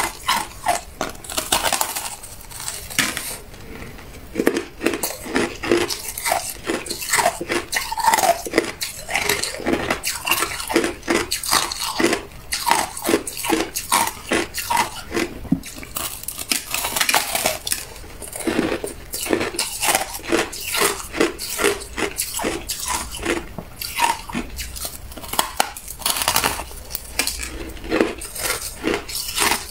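A person biting and chewing a block of hard ice: a long run of sharp crunches and cracks, several a second, as chunks break off between the teeth.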